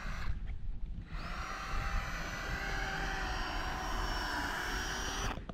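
Cordless drill: a short burst at the start, then about a second in it spins up and runs at a steady whine for about four seconds before stopping suddenly. Wind rumbles on the microphone underneath.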